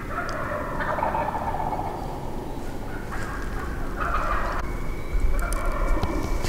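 Wild turkey gobbler gobbling from its roost close by, several gobbles in a row.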